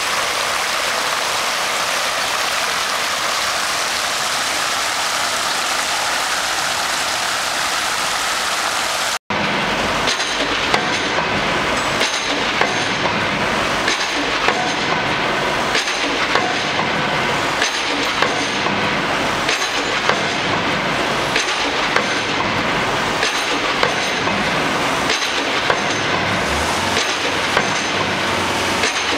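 Water rushing over a small river weir, a steady even noise. About nine seconds in it cuts to a city street: steady traffic-like noise with many small clicks and knocks.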